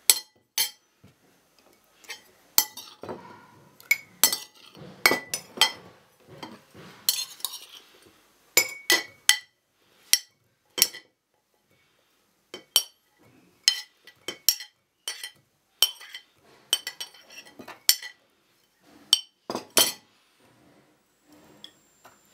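Cut fennel being packed into a glass jar: irregular clinks and knocks on the glass and ceramic dishes, some ringing briefly, with a couple of short pauses.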